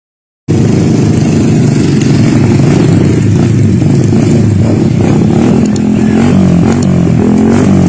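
Motorcycle engine running loud and close, its pitch rising and falling as it revs. It starts abruptly about half a second in.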